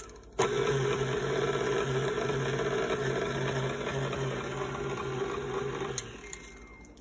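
Electric stand mixer motor running at slow speed, mixing the foamy yeast mixture. It switches on about half a second in and cuts off about a second before the end.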